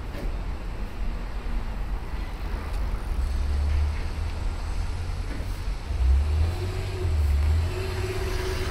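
City road traffic: vehicles running past with a low rumble that grows heavier in the second half, where a faint steady engine hum comes in.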